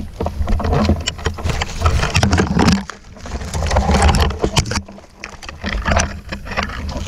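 Irregular rustling, knocks and handling noise from a gun-mounted camera as the player pushes through forest undergrowth, over a low rumble from movement on the microphone.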